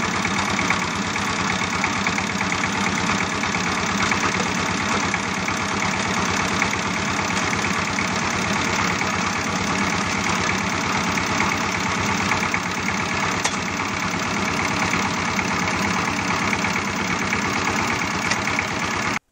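Small battery-powered DC motor of a homemade toy cultivator running steadily, a buzzing whir with a fast, even pulse as it drives the wheels through the soil.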